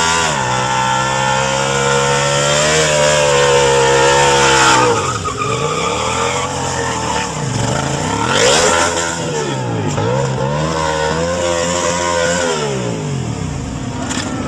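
Sport motorcycle engine held at high revs for about five seconds, then revved down and up again several times, with tyre squeal as the bike does a burnout and slides round in circles.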